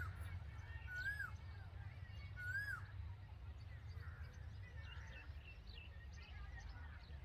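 Red-vented bulbul calling: three clear, arched call notes about a second apart in the first three seconds, then fainter, higher chirps, over a steady low rumble of background noise.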